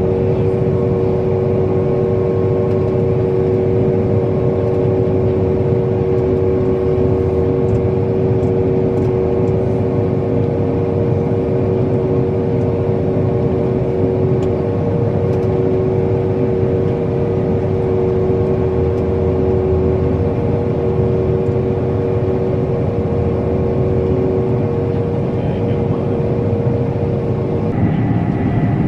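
Combine harvester running steadily: a constant engine and machinery drone with several steady humming tones. Near the end the tones change and a higher steady whine comes in.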